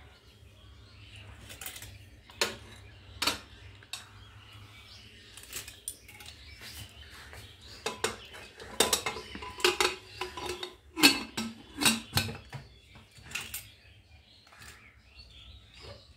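Aluminium pressure cooker lid being fitted and closed: scattered metal clinks and knocks against the rim, then a busy run of clanks, some briefly ringing, as the lid is seated and the handles brought together.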